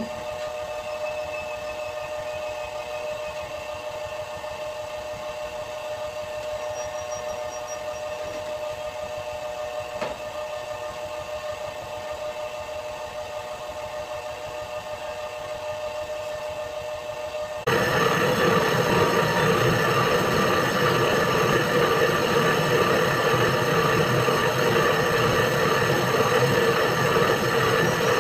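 Bakery trough dough mixer running with a steady motor hum. About two-thirds of the way in the sound suddenly gets louder and fuller as the machine churns the rusk dough.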